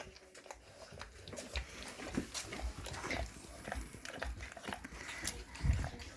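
Dogs licking peanut butter: a run of quick, irregular wet licks and mouth clicks.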